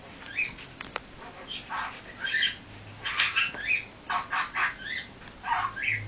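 Budgerigar chattering: a quick run of short, high chirps and squawks, coming thicker from about halfway through.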